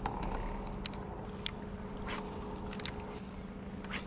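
Bow-mounted electric trolling motor humming steadily, with a few sharp clicks scattered through it.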